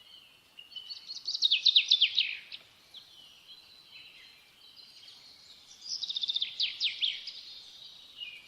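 A songbird singing two loud phrases, each a fast run of falling notes, about a second in and again about six seconds in, with softer chirps between them.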